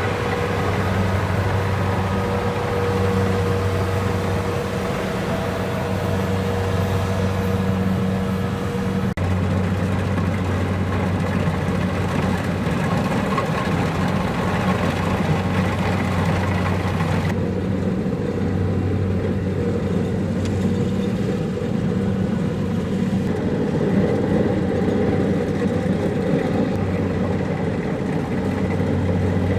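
Kubota DC-70 Plus combine harvester's diesel engine running steadily with a constant low hum. A higher steady whine from the machine stops about nine seconds in, and the sound turns duller about seventeen seconds in.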